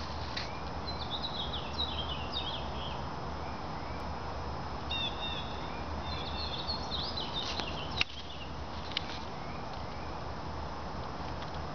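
Small songbirds chirping and twittering in quick high runs during the first eight seconds, over a steady outdoor hiss; a single sharp click about eight seconds in.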